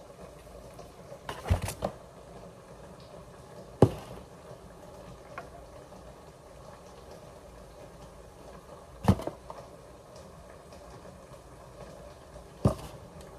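Knocks and clicks from a selfie stick being handled and adjusted: four sharp ones, well spaced, the first a short cluster, over a faint steady hiss.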